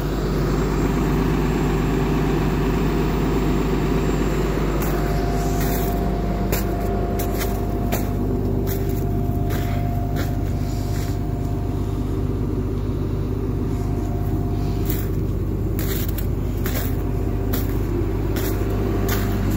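Diesel truck engine, the Peterbilt 348's Paccar PX-8 inline six, idling steadily, with scattered short clicks from about five seconds in.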